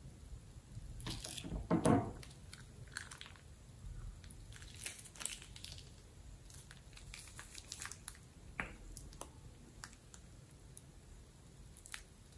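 Wet squelching and crackling of thick green slime being squeezed out of a plastic piping bag into a bowl of slime, with crinkling of the bag as it is wrung out. The sounds come in irregular short crackles, loudest about two seconds in.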